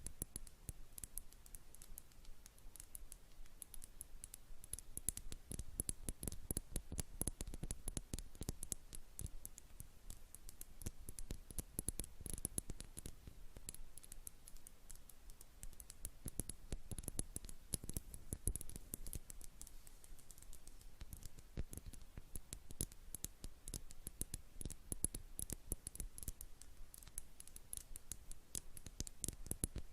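Fingers or nails tapping rapidly on a jar in a busy, irregular patter of many light clicks.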